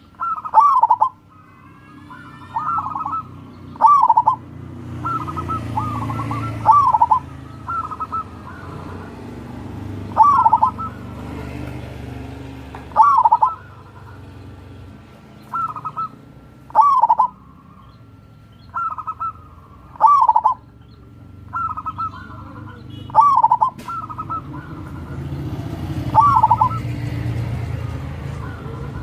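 Zebra dove (perkutut) cooing: short, rhythmic coo phrases repeated every second or two, over a low rumble in the background that swells twice.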